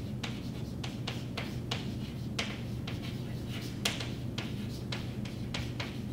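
Chalk writing on a chalkboard: an irregular run of quick taps and scratches as the letters are formed.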